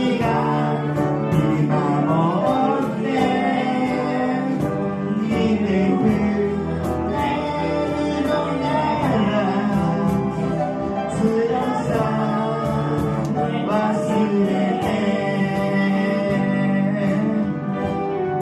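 A live song performance: voices singing a sustained melody over instrumental accompaniment.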